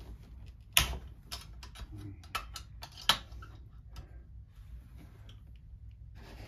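Irregular sharp metallic clicks and clinks of a hand wrench on a chainsaw's engine as fasteners are cracked loose, the loudest about a second in and again about three seconds in.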